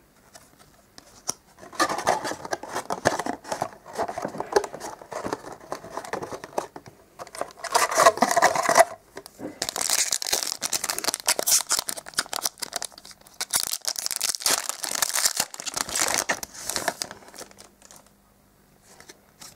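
A trading-card pack's plastic wrapper being torn open and crinkled, with the cards handled, in irregular rustling spells that die away about two seconds before the end.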